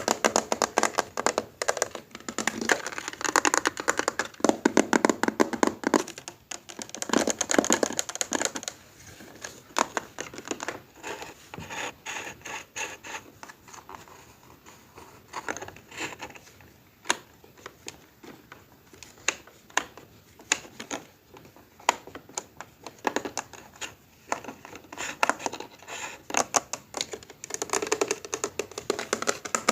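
Rapid small clicks and taps, like keys or buttons being pressed, coming in thick runs for the first several seconds and again near the end, sparser in between.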